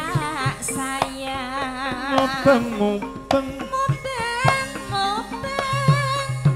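Live Javanese traditional music: a woman sings long, wavering notes with vibrato over repeated hand-drum strokes.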